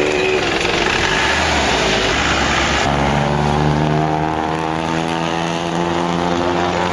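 Isuzu Highlander's diesel engine revving under throttle, as in a free-acceleration smoke test. About three seconds in the sound changes abruptly to a steadier, deeper note.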